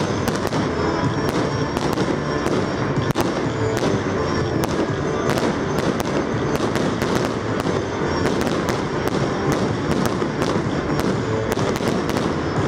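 Fireworks display: bursts going off in a dense, irregular string, two or three bangs a second, with a steady noise between them.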